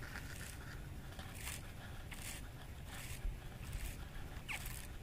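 Wind rumbling on the microphone, with a series of short scraping rustles about once a second from hands and sleeve handling fishing line and a baitcasting reel close to the microphone.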